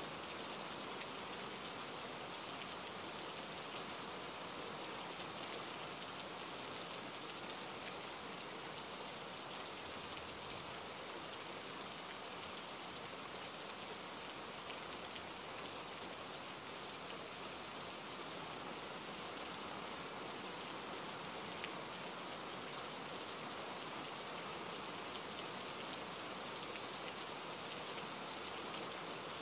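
Light rain falling steadily: an even hiss with the faint patter of individual drops.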